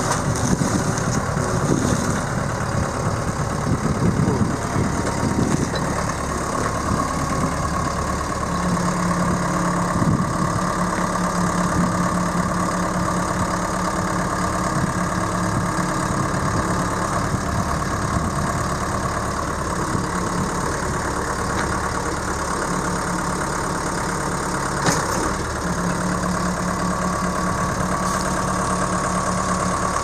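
2007 Case 440 skid steer's four-cylinder diesel engine running, uneven for the first few seconds and then steady, with a whine held over it from about six seconds in.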